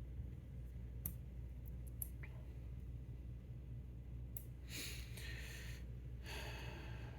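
A few faint small clicks, then two breaths or sighs near the end, over a steady low hum.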